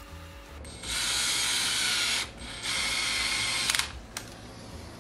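Cordless drill-driver running screws in, in two spells of about a second each with a short pause between, a thin steady whine over the motor noise, ending with a few sharp clicks. The screws fasten the window motor to the new window regulator.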